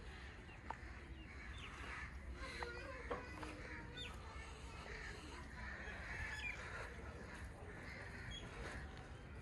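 Faint outdoor ambience with scattered bird calls, some of them honking, over a low steady rumble.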